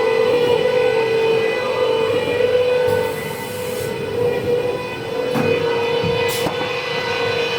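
Toilet paper log saw cutting machine running with a steady machine hum. A brief hiss comes about three seconds in, and a short sharp click comes near the end.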